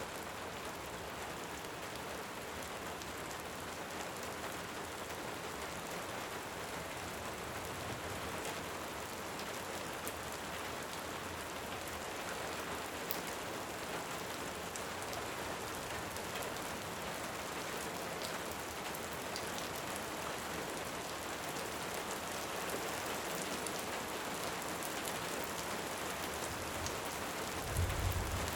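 Steady, even hiss of heavy rain, with faint scattered clicks through it. A short low rumble of distant thunder swells near the end.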